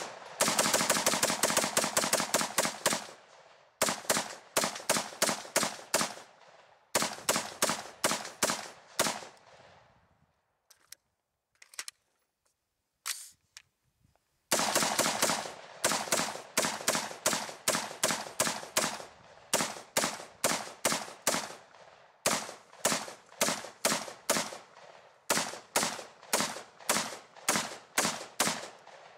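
AR-15 carbine fired rapidly in long strings of shots: a very fast run for the first three seconds, then strings of about four shots a second. It stops for about four seconds midway, with only a few faint single cracks, before firing resumes.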